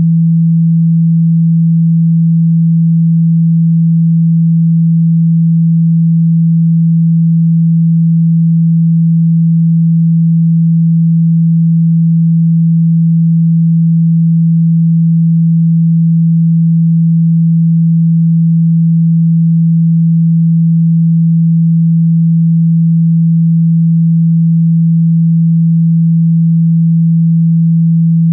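A loud, steady, low hum: a single pure tone held without a break or change in pitch. It is a water-eject tone, played so the vibration pushes trapped water out of a phone's speaker.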